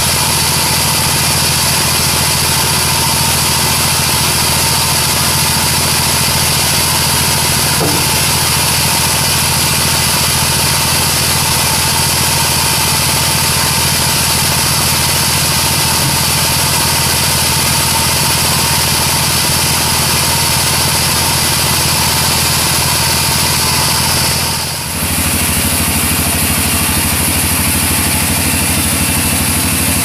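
Band sawmill running: a steady low machine drone under a high, even whine. About 25 s in the sound dips briefly, and the high whine falls away after it.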